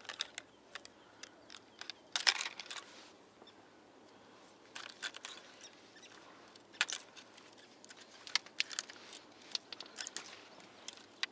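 Scattered light clicks and rustles of a telescopic fishing rod and its float rig being handled and unwound, with a small cluster of clicks about two seconds in.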